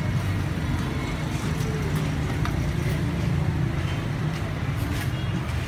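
Steady low rumble of street traffic, with a few faint clicks over it.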